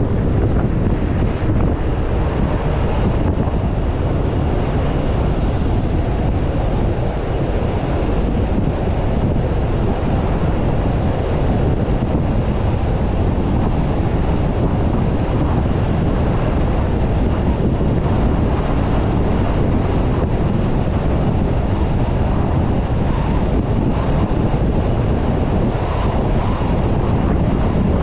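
Steady wind and road noise from a car driving at highway speed, with wind buffeting the microphone.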